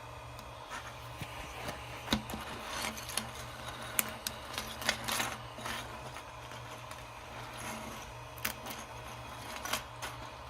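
Jointed plastic segments of a 3D-printed flexi snake clicking and rattling against each other as it is bent by hand, in irregular bursts of small clicks with a few sharper knocks.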